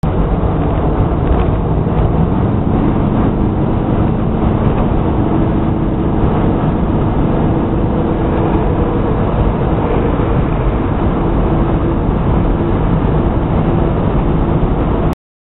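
Oldsmobile 442 V8 engine and road noise heard from inside the car while cruising, a loud steady drone that cuts off abruptly near the end.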